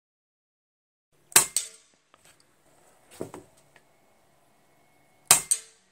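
Two shots from a Daystate Red Wolf .177 HP precharged pneumatic air rifle, about four seconds apart. Each is a sharp crack followed about a fifth of a second later by a smaller report, as the pellet strikes the target 35 yards downrange. A softer clack falls between the two shots.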